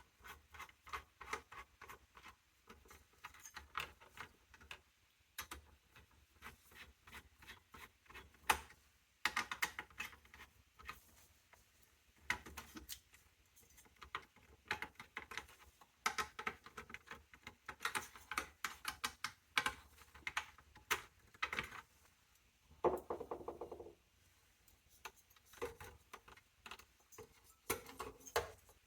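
Irregular clusters of small clicks, taps and rattles from hands handling computer parts, plastic and metal, with a short squeaky scrape about two-thirds of the way through.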